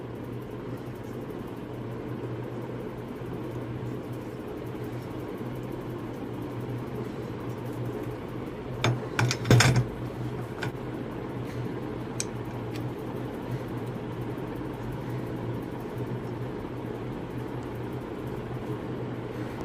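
A steady low hum runs throughout. About nine to ten seconds in comes a quick cluster of metallic knocks and clinks, the loudest sound, as the aluminium extrusion and its gantry plate are handled and set on the desk. A few lighter clicks follow.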